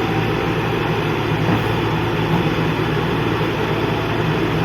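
Engine of heavy construction equipment running steadily at an even pitch.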